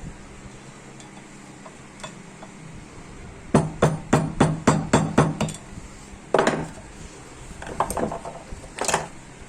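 A quick run of about eight sharp metal taps about three and a half seconds in, then a few more single knocks, as parts of a power steering rack and pinion are worked apart during disassembly.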